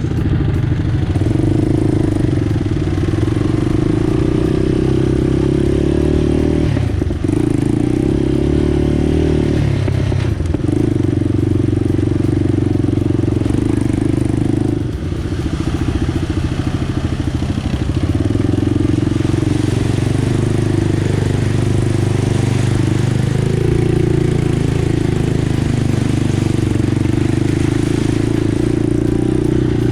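ATV engine running steadily while riding on the trail, its note easing off briefly three times in the first half before holding steady again.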